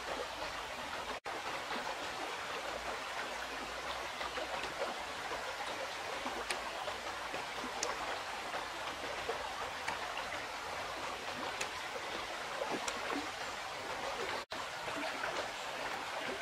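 River water flowing in a steady rush, with a few faint small clicks now and then. The sound breaks off for an instant twice, about a second in and near the end.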